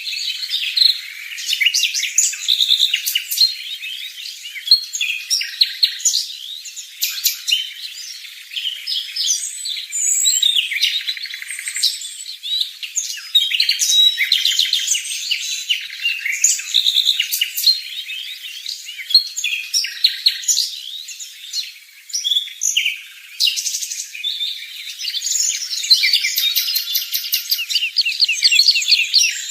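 Small birds chirping and twittering: a near-continuous stream of rapid, high-pitched chirps, sometimes thinning out briefly, as around a feeding.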